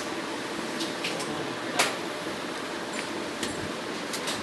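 A few sharp clicks and taps from handling a flat-screen TV and its cables on a workbench, the loudest about two seconds in, over a steady background hiss.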